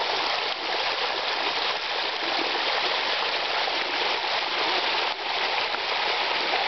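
Small waterfall pouring down stepped rock ledges: a steady rush of splashing water.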